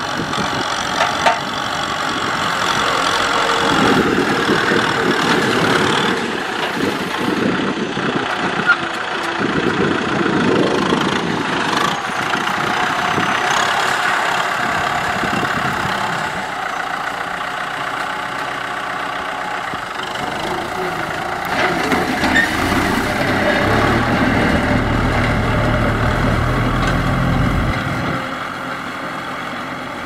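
Kubota M6040SU tractor's four-cylinder diesel engine running under load while pulling a disc plough through dry ground, swelling louder twice as the tractor passes close.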